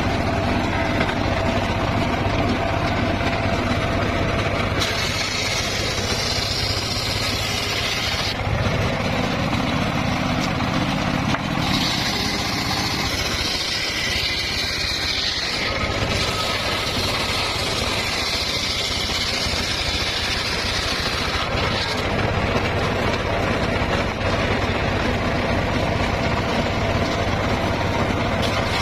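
Homemade circular sawmill running steadily with a constant low engine hum, and three stretches of a higher hiss a few seconds long as the blade cuts through timber.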